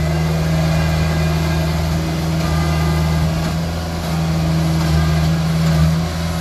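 Combine harvester's diesel engine running steadily with a low, even hum while the machine is bogged down in mud and cannot move.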